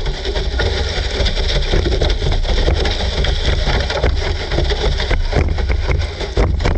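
GPTOYS S912 RC car driving across grass, close up: a steady heavy rumble with constant rattling knocks as it bumps along.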